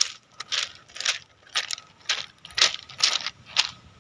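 Footsteps crunching over a pebble beach, the smooth stones clacking and grinding together underfoot, about two steps a second.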